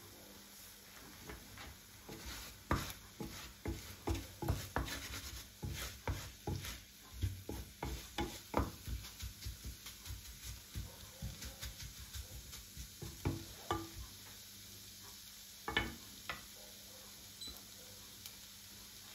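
Utensil stirring and scraping in a frying pan: a quick, irregular run of clicks and knocks over a faint sizzle. The knocking thins out after about fourteen seconds and ends with two last knocks.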